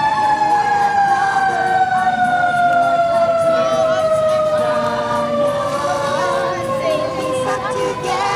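A siren winding down in one long, slowly falling tone, typical of a mechanical siren coasting to a stop.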